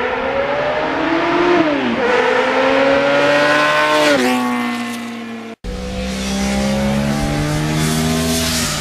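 Sport motorcycle engine accelerating hard as the bike passes close by. The pitch rises, then drops sharply twice as it shifts up. After a brief cut, a second motorcycle engine runs at a steadier pitch.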